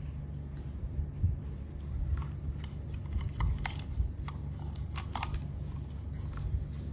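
Scattered light clicks and taps, a few close together about halfway through, over a steady low hum.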